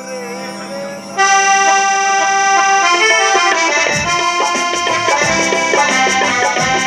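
Live band music: a reedy keyboard melody with sustained chords comes in loudly about a second in. Hand drums join with a steady beat about four seconds in.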